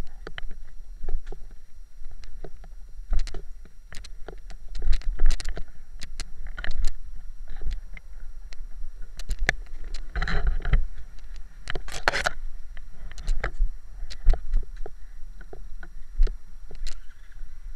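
Dirt bike moving slowly over a rough dirt track: irregular knocks and rattles from the bike and its camera mount over a constant low rumble. The loudest clusters of knocks come about ten and twelve seconds in.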